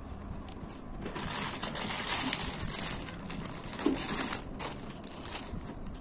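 Packaging crinkling and rustling as it is handled, for about three and a half seconds starting about a second in, with a few small clicks before and after.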